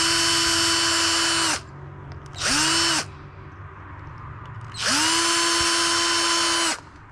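Small electric drill drilling holes in a hair clipper part, run in three bursts: each spins up quickly to a steady whine and cuts off, the first and last about two seconds long, the middle one about half a second.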